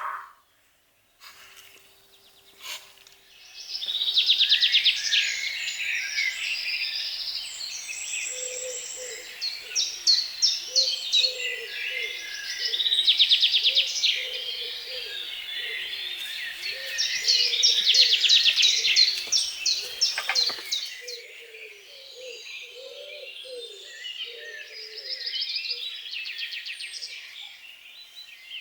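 Many small birds chirping and trilling together, starting about four seconds in after a near-silent start. A lower run of short, repeated calls joins in partway through. Both stop abruptly about twenty seconds in, and fainter chirping goes on after that.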